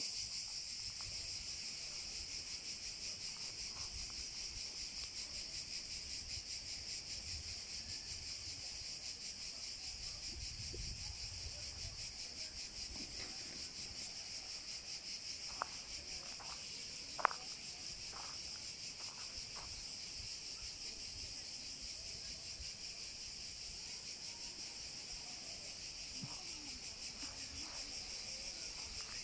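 Steady, shrill chorus of cicadas, a dense unbroken buzz with a fast pulse. Two sharp clicks stand out just past halfway, the second the loudest.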